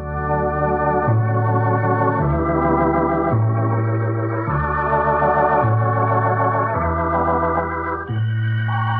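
Eminent 2000 Grand Theatre electronic organ playing sustained, wavering chords over a bass line that steps to a new note about once a second. It is heard from an old demonstration tape with wow and flutter.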